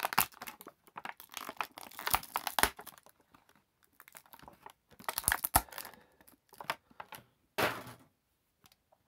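Clear plastic blister tray crinkling and crackling as an action figure is pulled out of it, dense at first and then in shorter bursts with pauses.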